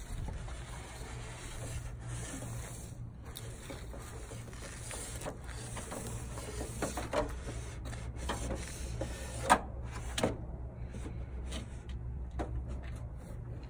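Rubbing and scraping noises over a steady low hum, with two sharp clicks close together about two-thirds of the way through.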